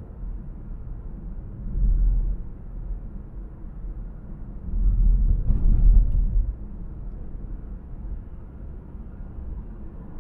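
Low, muffled rumble of a car driving on a city road, swelling briefly about two seconds in and again, more strongly, around the middle.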